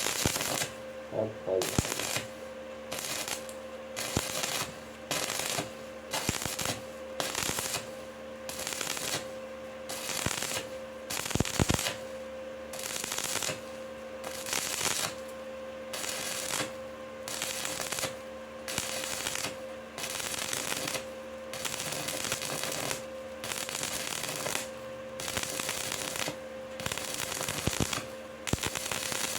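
Stick-welding arc on a pipe joint with an ESAB OK 46 rutile electrode, crackling and sizzling in short pulses that break off and strike again about once a second, as the welder works the electrode in a stepping, interrupted motion. A faint steady hum from the welding machine runs under it.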